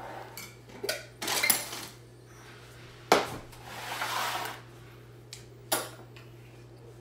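Kitchen handling on a countertop: a metal spoon, a glass jar of tomato sauce being opened, and a plastic container knocking and clinking. There are clatters about a second in, a sharp knock about three seconds in, a scraping rustle around four seconds, and a couple of clicks near the end, over a steady low hum.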